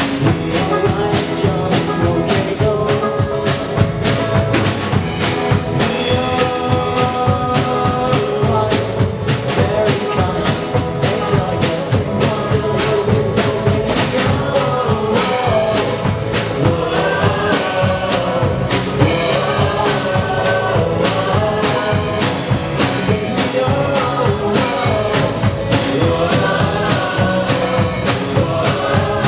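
A live band playing a pop-rock song, with a drum kit keeping a steady beat under guitars and singing.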